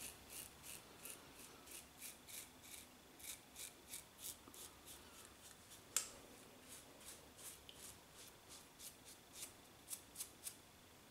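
Faint, short scraping strokes of a double-edge safety razor cutting neck stubble, about three a second, with a sharper click about six seconds in.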